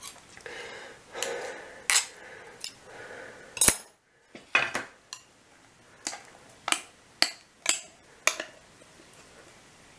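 Metal spoon clinking and scraping against a glass measuring jug as sticky sourdough is scooped out. The sharp clinks come irregularly at first, with the loudest a little before 4 seconds in. Later they come about every half second.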